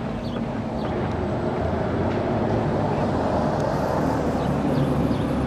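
A motor vehicle's engine running with a low hum, growing gradually louder as it approaches.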